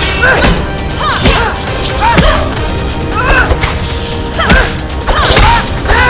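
Hand-to-hand fight sound: repeated punch and kick impacts, about one a second, each with a short effort grunt, over background music.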